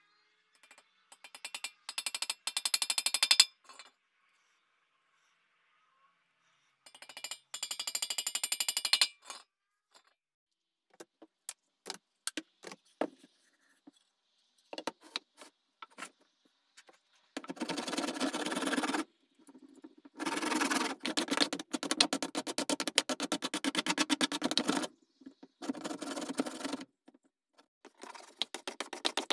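A ball-peen hammer tapping on the steel stool frame in two quick runs of strikes, then a few scattered knocks, then several long strokes of a hand plane cutting shavings from an elm board, each lasting one to several seconds.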